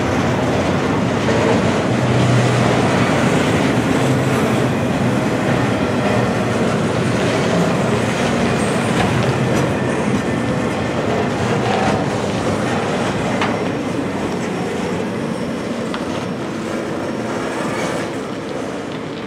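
Double-stack intermodal freight cars rolling past on steel rails: a steady clatter of wheels on track that eases off near the end as the last cars go by.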